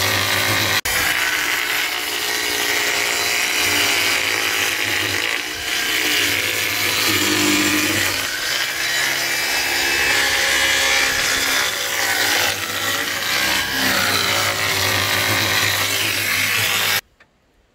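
Corded electric jigsaw cutting through a sheet of OSB board, its motor pitch wavering with the load as the blade works along the cut. It cuts off suddenly near the end.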